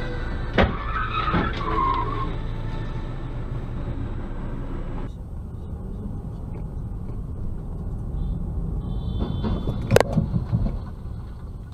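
Steady dashcam engine and road noise, then about ten seconds in a loud crash as one car slams into another, with a short clatter after the impact.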